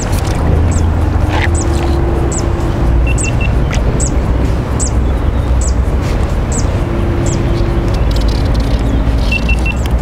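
A steady low rumble, with a run of short high chirps repeating about every 0.6 s and two quick sets of three beeps, one about three seconds in and one near the end.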